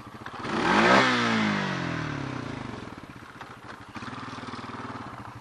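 Riding lawnmower engine surging about a second in, then its note falling steadily over about two seconds as the engine slows, settling into steady running.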